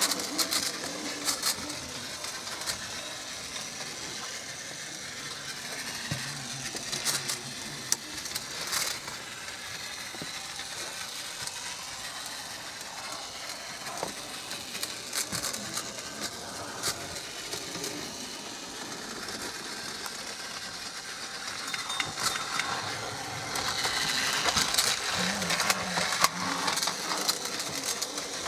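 Plarail battery-powered toy trains running on plastic track: small motors whirring, with irregular clicks and clatter from the wheels and track joints.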